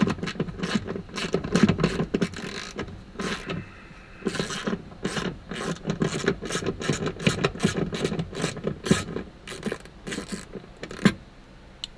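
Hand ratchet with a 10 mm socket clicking rapidly in quick runs as it backs out a seat belt mounting bolt. It stops near the end with one sharper click.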